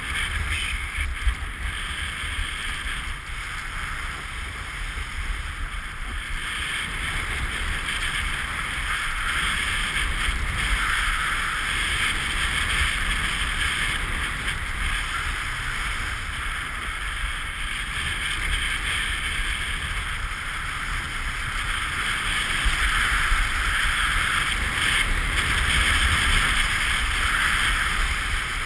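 Snowboard sliding and scraping over cut-up, bumpy piste snow, a steady hiss that swells in places and grows louder in the second half, with wind rumbling on the GoPro's microphone.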